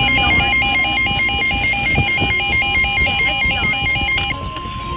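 Emergency alert tones for a severe thunderstorm warning: a fast, rhythmic two-pitch beeping that stops about four seconds in, over a steady single high tone that keeps sounding.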